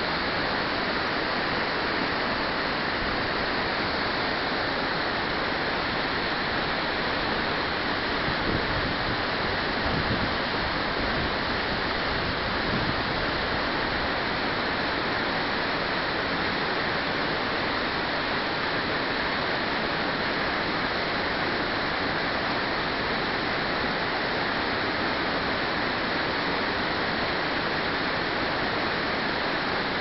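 Waterfall and the river's rapids below it, falling water making a steady, unbroken rushing sound.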